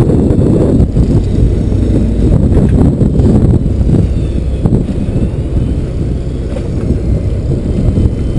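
Wind buffeting the microphone on a boat at sea: a loud, steady low rumble that flickers unevenly, with a faint high whine gliding up and down in the middle.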